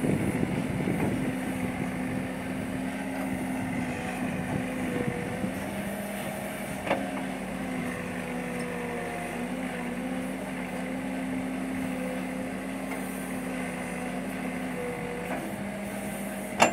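Case 770 backhoe loader's diesel engine running steadily while the backhoe digs, with a higher tone that wavers up and down in pitch. A sharp knock comes about seven seconds in and another at the very end.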